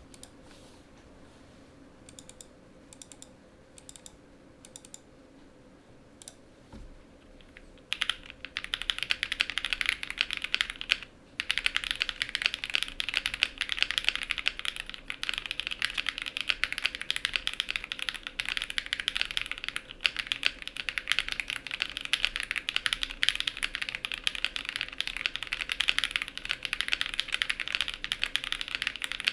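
Sun68 mechanical keyboard with lubed Kailh Ashes switches in a polycarbonate plate and GMK keycaps, being typed on. A few faint, separate keypresses come first; about a quarter of the way in, steady fast typing begins, broken once by a short pause soon after.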